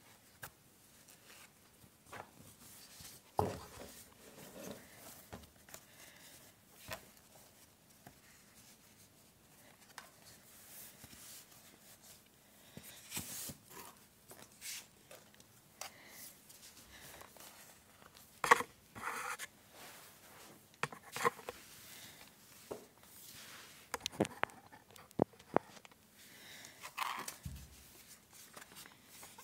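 Plastic wrapping rustling and crinkling as a new laptop is worked out of its protective sleeve, with scattered sharp clicks and knocks from handling the laptop and its cardboard box. The loudest knock comes about two-thirds of the way through.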